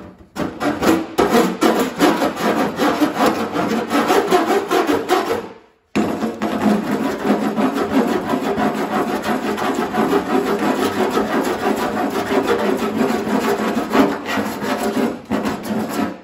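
Vixen body file rasping across lead body filler on a steel fender in rapid back-and-forth strokes, shaving the lead down level over a welded seam. The filing breaks off briefly about six seconds in, then carries on.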